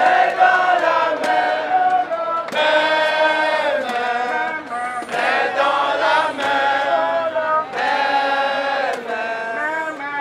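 A group of people singing a chant together in phrases of held notes, with short breaks between phrases.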